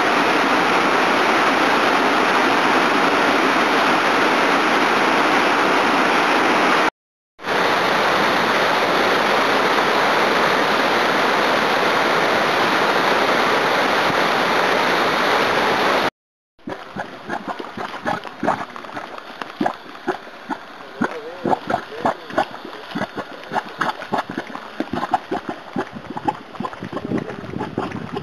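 Waterfall pouring steadily into a pool, twice broken off briefly by cuts. About two-thirds of the way through it gives way to a volcanic mud pot bubbling, with brief irregular plops and pops several times a second.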